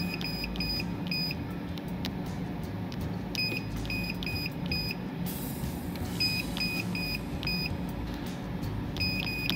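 Weintek touchscreen HMI on a case erector beeping once with each key press as numbers are typed on its on-screen keypad. The short, identical high beeps come in quick runs of four or five with short pauses between.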